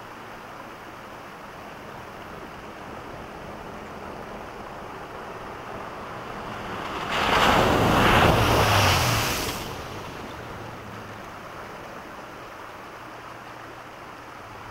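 A 1996 Toyota Tacoma pickup driving fast through a flooded dirt road: its engine grows louder as it nears, then a loud rushing splash of water as it ploughs through, about seven seconds in and lasting two to three seconds, after which the engine hum fades.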